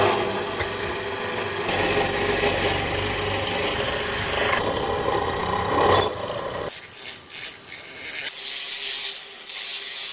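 Flexible-shaft rotary carving tool running, its burr grinding and rasping into a block of wood over a steady motor hum. About seven seconds in it drops to a quieter, lighter, patchier scraping.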